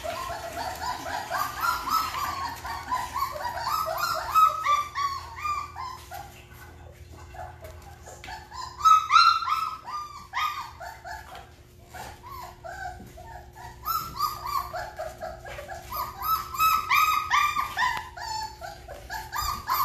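Three-week-old Great Bernese puppies whining and squeaking in rapid strings of short, high cries, in three bouts with quieter lulls between.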